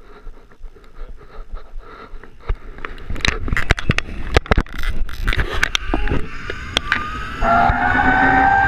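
Metal clinks and knocks from carabiners and harness gear, then, about a second before the end, a zipline trolley's pulleys begin to whine on the steel cable, the whine rising slowly in pitch as the rider picks up speed.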